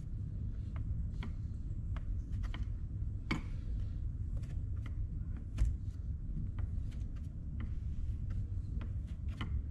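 Clear plastic ruler slicing down through a slab of kinetic sand: a string of light, irregular clicks and taps, over a low steady rumble.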